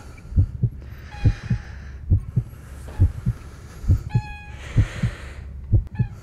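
Heartbeat sound effect: a steady double thump, lub-dub, a little over once a second. A short high pitched sound comes in about four seconds in.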